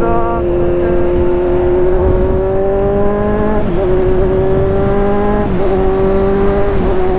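Motorcycle engine pulling through the gears: its pitch climbs steadily, then drops sharply at upshifts about three and a half and five and a half seconds in, with a smaller dip near the end. Wind rush runs underneath.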